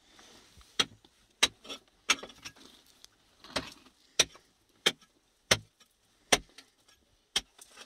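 A hand tool striking rock over and over, about nine sharp blows roughly two every 1.3 seconds, with a short pause partway through: chromite ore being broken by hand.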